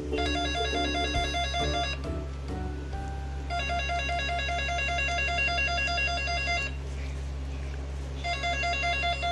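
Electronic trilling ringtone sound effect, like a telephone ringing. It rings in three bursts of two to three seconds with short pauses between them, over a steady background music bed.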